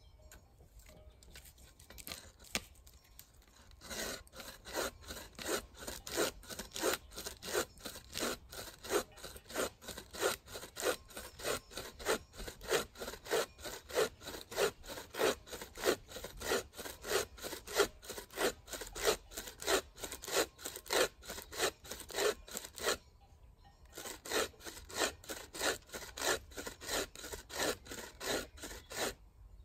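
Hand saw cutting through wood in steady back-and-forth strokes, about two and a half a second. The sawing starts about four seconds in, stops briefly near the end, then resumes.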